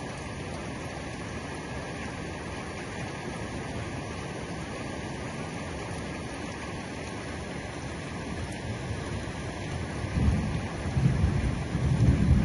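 Steady heavy rain, with a low rumble of thunder that starts about ten seconds in and grows louder toward the end.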